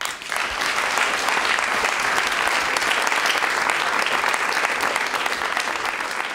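Audience applauding: a full round of clapping that breaks out at once, holds steady and eases slightly near the end.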